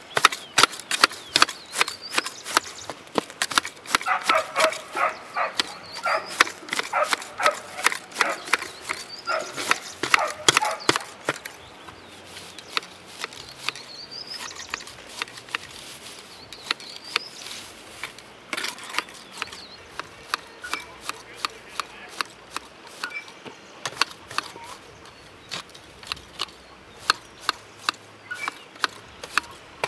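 Long-handled grass shears snipping through grass: repeated sharp metal snips, a few a second, more spaced out in the second half.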